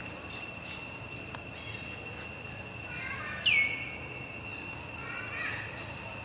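Steady, high-pitched insect drone in the background. About halfway through, a single loud, sharp call sweeps quickly down in pitch and briefly holds, with fainter short calls later.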